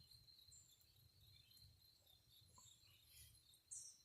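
Near silence: faint outdoor ambience with a steady high insect drone, and a short high chirp near the end.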